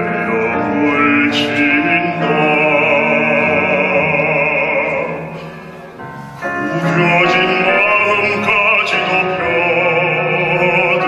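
Baritone singing a Korean art song in operatic style with a wide vibrato. The singing breaks briefly about halfway through, then the next phrase begins.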